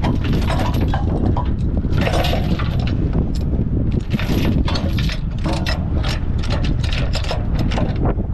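Heavy yellow alloy recovery chain rattling and clanking link against link and against the steel deck of a heavy rotator tow truck as it is pulled out by hand, with a quick run of clanks in the second half, over a steady low rumble.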